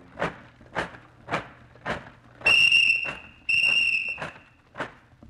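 Radio-drama sound effects: steady footsteps, about two a second, and a shrill whistle blown twice in long, even blasts about halfway through.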